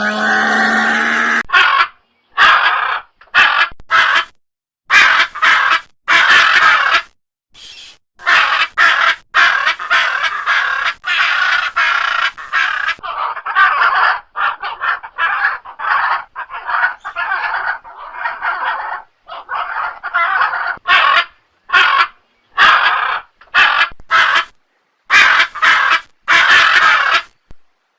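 Macaws squawking: a long run of loud, harsh, raspy calls, some short and some drawn out for a second or more, each cut off sharply by a brief silent gap.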